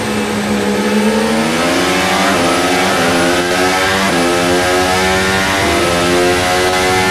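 Mercedes turbo V6 hybrid engine of a 2024 McLaren Formula 1 car, heard onboard, accelerating hard out of a slow corner. The pitch bottoms out about a second in, then climbs again and again, dropping sharply at each quick upshift, about once a second.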